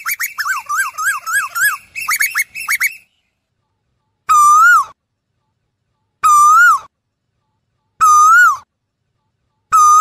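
Asian koel calling: a fast run of short rising whistled notes for about three seconds, then after a pause single drawn-out whistled notes repeated about every two seconds.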